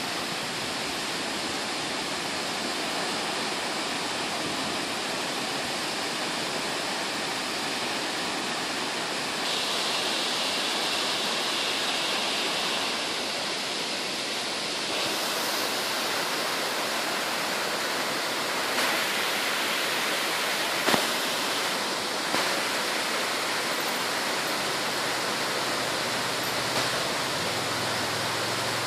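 Mountain waterfall: water cascading down a rock face, a steady rushing noise. A few short knocks about two-thirds of the way through.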